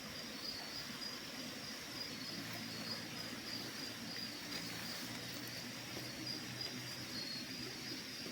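Night insects, crickets, chirping in a steady high pulsing trill, with a faint low hum from about two seconds in until near the end.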